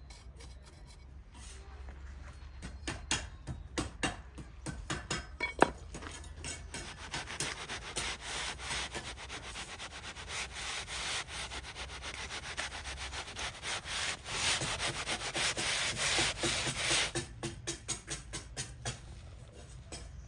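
Damp sand-cement mix being scooped, rubbed and packed into a pot mould by gloved hands and a small metal tool: a run of quick gritty scraping strokes, loudest through the middle and thinning out near the end, with one sharper tap about five and a half seconds in.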